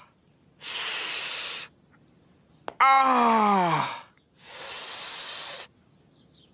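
Homer Simpson's cartoon voice in pain after the chair blow: a hissing sharp breath in, a groan that falls steadily in pitch, then another hissing breath in.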